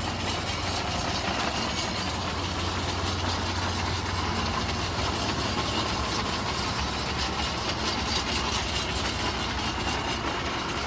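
Mahindra backhoe loader's diesel engine running steadily.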